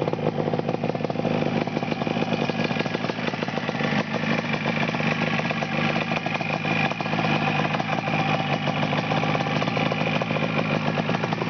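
Yamaha RD350 cafe racer's air-cooled parallel-twin two-stroke engine idling steadily.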